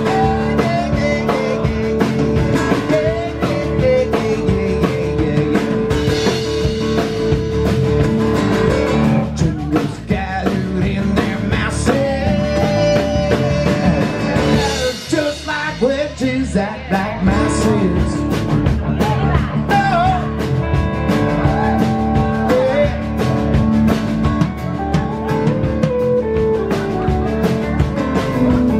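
Live rock band playing: a male singer with acoustic-electric guitar, backed by drum kit, bass and electric guitar. The band thins out briefly about halfway through, then comes back in full.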